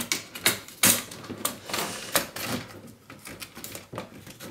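A plastic strap and its fastening being handled and done up: a string of irregular sharp clicks and rattles.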